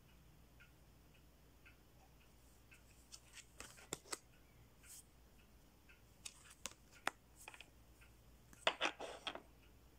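Tarot cards being handled on a table: scattered light clicks and taps as cards are picked up, slid and laid down, with a short burst of louder card rustling near the end.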